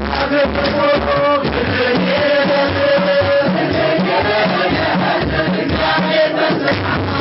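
Large hand drums beating a steady rhythm of about two strokes a second under a group of voices chanting in unison with long held notes.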